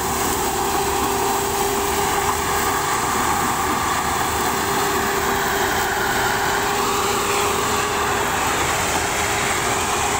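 Tractor-mounted sugarcane harvester running steadily under power: the New Holland 3630 tractor's diesel engine driving the cutting and loading machinery, a loud, even drone with one held note in it.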